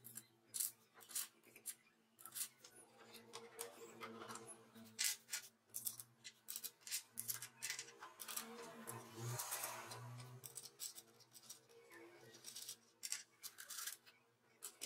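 Small sharp metal clicks and clinks, irregular and many: steel washers handled and dropped onto threaded bolts, and wing nuts being fitted and turned on the studs.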